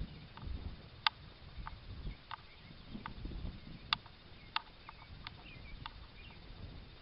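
Low wind rumble on the microphone, with scattered sharp clicks at irregular intervals and a few faint chirps.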